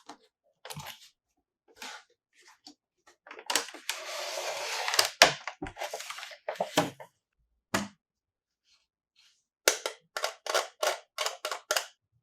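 Small plastic toy pieces clicking and clacking as they are handled. About three and a half seconds in comes a rustling, crinkling stretch of plastic lasting about a second and a half. Near the end there is a quick run of about nine sharp clicks, roughly four a second.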